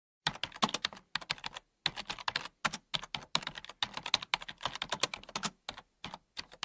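Typing on a computer keyboard: quick runs of key clicks in short bursts with brief pauses, starting a moment in after silence.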